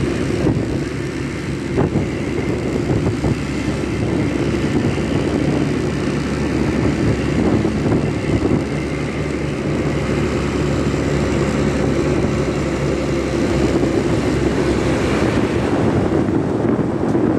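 Large diesel bus engine running steadily at low revs, with surrounding traffic noise.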